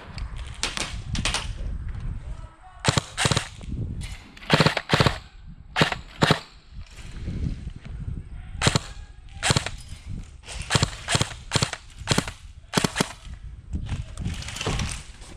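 Airsoft guns firing sharp single shots at an irregular pace, often two in quick succession.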